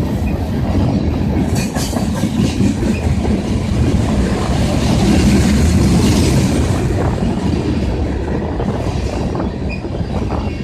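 Freight train of ethanol tank cars rolling past, wheels clattering over the rail joints with a few brief wheel squeals, over a steady low rumble. Heavy wind buffets the microphone.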